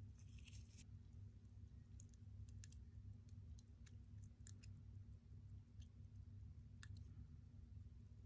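Faint, sparse clicks of small steel watchmaker's tools, tweezers and a screwdriver, touching a watch movement: a quick cluster in the first second, then single clicks every second or so, over a low steady hum.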